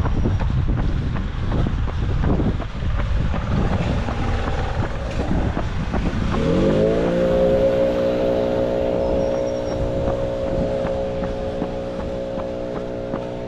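Rumbling traffic and wind noise, then about six seconds in a motor vehicle's engine rises in pitch and settles into a steady hum.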